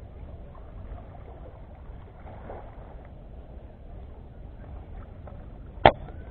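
A single sharp shot from an air rifle firing a fishing spear, near the end, over steady low background noise.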